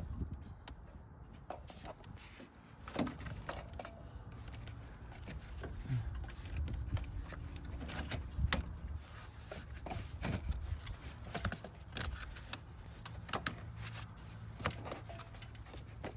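Scattered metallic clicks and clinks of hand tools and parts being handled during work under the hood, over a steady low rumble.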